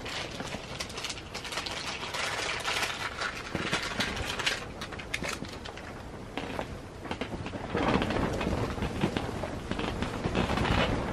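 Strong wind gusting against a canvas tent, the fabric rumbling and flapping in waves, with a stronger gust swelling up about eight seconds in.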